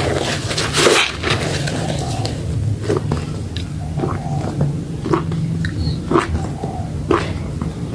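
Bar of Lux soap being lathered with water, giving irregular wet squelches and small clicks, the loudest about a second in.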